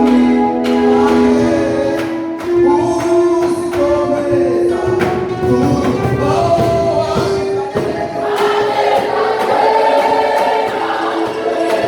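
Church choir singing a gospel worship song over band accompaniment with percussion hits.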